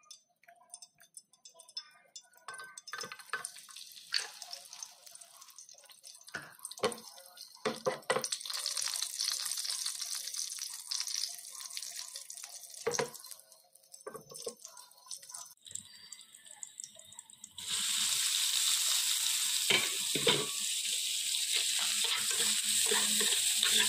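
Frying in a pan on the stove: garlic and shallot pieces sizzle in hot oil, with knocks of a utensil against the pan. Past the middle the sizzle jumps suddenly to a much louder, steady hiss as chicken giblets go into the hot pan and are stirred.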